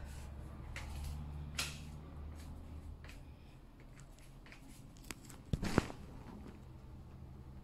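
Quiet small-room tone with a low steady hum and scattered faint clicks and rustles; the loudest is a short cluster of sharp clicks about five and a half seconds in.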